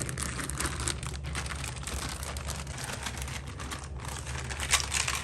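Hard plastic toy pieces of a magnetic-tile marble-run set clicking and clacking together as they are handled, with a louder clatter near the end.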